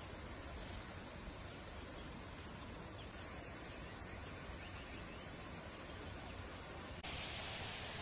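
Insects droning steadily over an even background hiss in hillside forest, the high drone strongest in the first few seconds. About seven seconds in, the sound cuts abruptly to a louder, brighter hiss.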